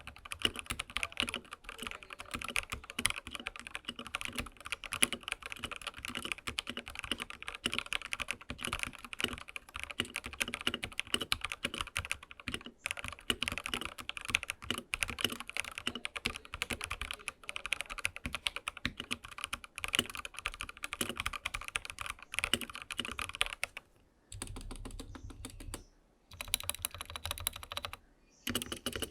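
Fast, continuous typing on a Dareu A87 mechanical keyboard fitted with lubed SP Star Polaris Grey 60 g linear switches and Akko keycaps. The keystrokes carry a hollow echo, which the modder puts down to the gap between the PCB and the case. The typing thins out with short pauses near the end.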